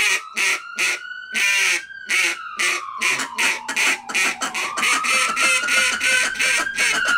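Ducks quacking in a rapid run of loud calls, about three a second, over a siren that wails slowly up and down.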